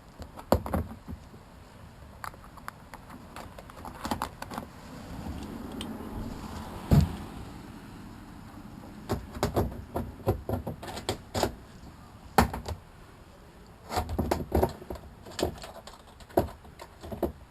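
Clicks, knocks and rattles of a windshield being handled and fitted onto a Mokai ES-Kape hull, in scattered bursts with a few sharper knocks.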